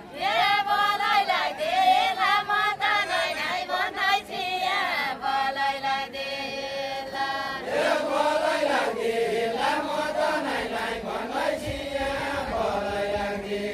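Unaccompanied deuda folk singing by a group of dancers, voices chanting a sung verse together. About eight seconds in, lower voices take up the next line.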